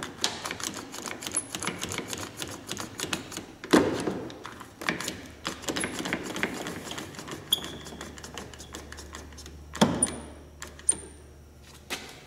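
Irwin one-handed bar clamp being pumped tight, its trigger mechanism clicking in a fast run that thins out later. A couple of louder knocks come about 4 and 10 seconds in.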